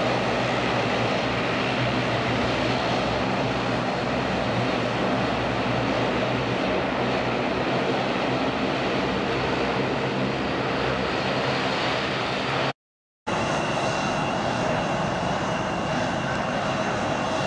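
Dash 8-400 turboprop running steadily with a low, even propeller drone. About 13 s in the sound cuts out for half a second, then an Embraer regional jet's engines run with a steady high whine.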